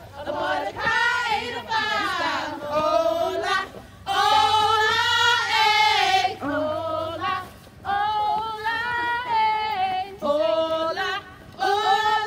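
Female voices singing a chant in short sung phrases, each about a second long, with brief breaks between them.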